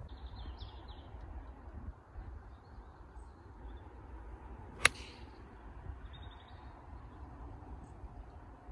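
A golf club striking the ball on a full swing from the tee: one sharp crack about five seconds in, with a brief high ring after it. Birds chirp faintly over a low outdoor background.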